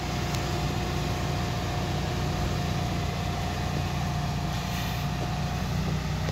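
Bucket truck's engine idling, a steady low hum, with a faint steady high whine that fades out near the end.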